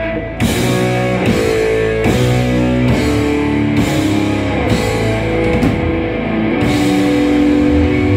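Thrash metal band playing live through Marshall amps: distorted electric guitars hold a series of chords that change about once a second, each struck with a drum hit and a cymbal crash.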